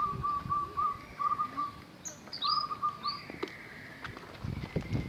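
Caged songbirds calling: a fast run of repeated chirps at one steady pitch, a second shorter run a little after the middle, and a few short high whistled notes sliding up or down between them.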